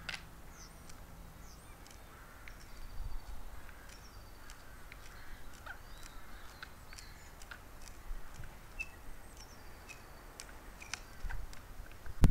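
Faint boring of wood with a hand brace: irregular small clicks and creaks as the bit is cranked into a log. Small birds chirp and call in the background.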